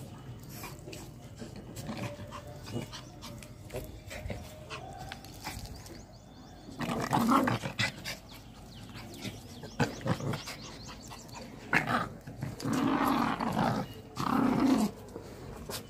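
Two small dogs play-fighting and growling at each other. The growls come in several short, loud bursts in the second half, after quieter scuffling at the start.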